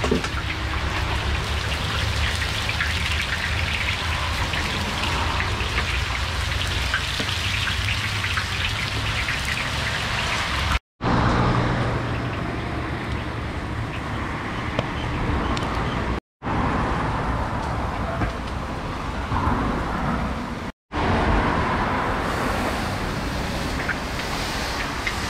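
Hot oil sizzling and crackling in a large pilaf kazan, a steady rain-like hiss over a low rumble, broken by three brief dropouts.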